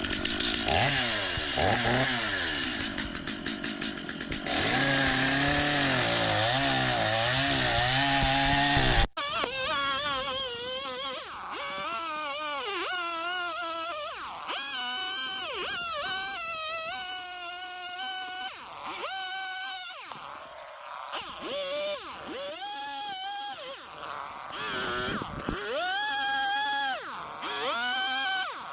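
Gas chainsaw running and revving while carving a log, its engine pitch rising and dipping again and again as the chain bites into the wood. The sound breaks off sharply about nine seconds in and comes back thinner, still rising and falling.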